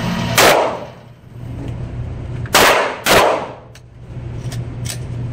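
Three gunshots in an indoor shooting range, each with a short echo off the range walls: one about half a second in, then two close together between two and a half and three seconds in. A steady low hum runs underneath.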